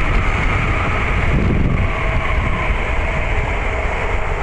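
Motorcycle engine running with wind rushing over the helmet-mounted microphone while riding, a steady low rumble under the wind noise.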